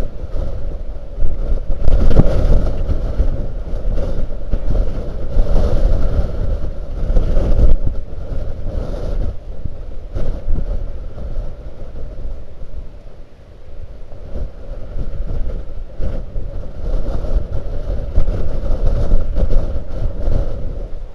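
Blizzard wind buffeting the microphone in gusts: a loud low rumble that surges and eases every few seconds, easing off for a while around the middle.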